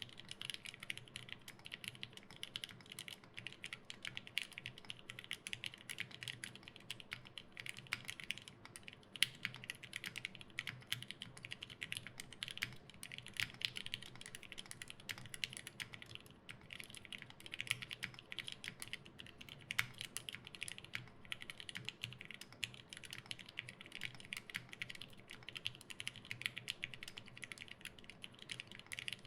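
Continuous typing on an LZ Physix mechanical keyboard with lubed Gateron Yellow linear switches in black housings, an FR4 plate and GMK keycaps: a steady stream of key strikes with a brief lull about sixteen seconds in.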